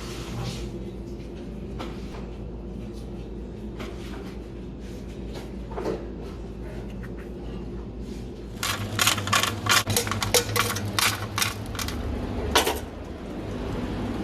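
Metal utensils clicking and clanking in a quick, irregular run over a steady low hum, the clatter strongest in the second half.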